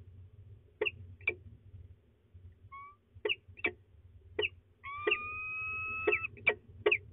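A pair of peregrine falcons calling: a series of short, sharp chupping notes, and from about five seconds in a long, drawn-out wailing call that runs for about a second and a half, overlapping the short notes.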